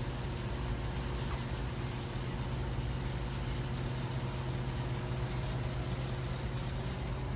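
Steady low hum with a few constant tones over an even background hiss, unchanging throughout: the room's background machinery noise.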